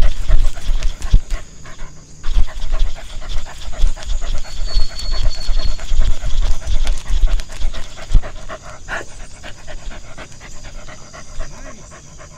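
A dog panting, with low thuds under it for the first eight seconds or so, after which it grows quieter.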